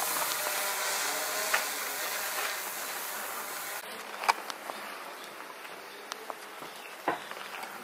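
Outdoor background: a steady high hiss that fades and drops away about four seconds in, with a few sharp clicks scattered through it.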